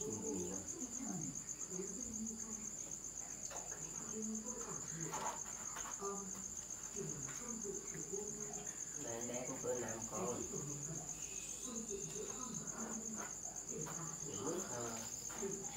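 Insects chirring in a steady, high, continuous trill, with a faint murmur of voices underneath.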